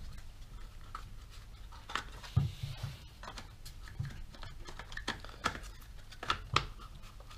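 Light, irregular clicks and taps of parts and tools being handled while a petrol string trimmer is worked on.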